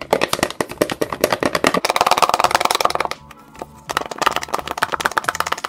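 A small plastic toy container part-filled with water, shaken hard by hand to mix its contents: a fast rattling slosh of about a dozen strokes a second, which stops for under a second about three seconds in and then starts again.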